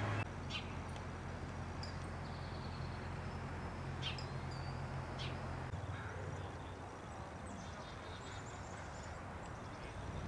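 Low, steady hum of a vehicle's engine heard from inside, shifting in pitch a couple of times. A few short, high bird chirps sound over it.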